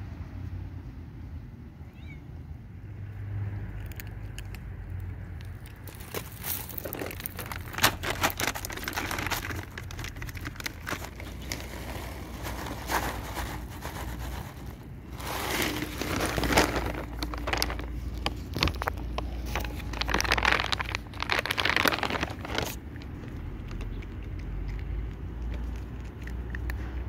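Plastic bag of dry cat food crinkling and rustling as kibble is shaken out onto concrete, in dense crackling spells that are loudest in the second half and stop a few seconds before the end. A low steady rumble runs underneath.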